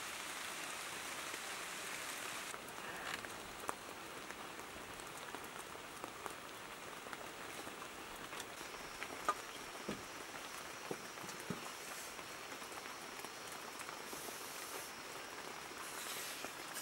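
Steady outdoor background hiss with scattered light clicks and knocks as a metal cooking pot and pieces of cooked chicken are handled. A faint steady high-pitched tone joins about halfway through.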